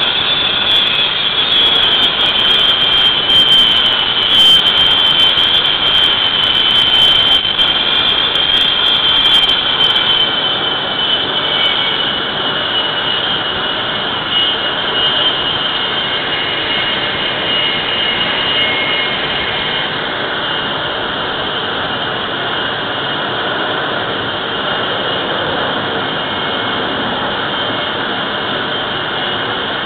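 Jet engines of carrier aircraft running on an aircraft carrier's flight deck: a steady roar with a high whine that dips slightly in pitch over the first ten seconds.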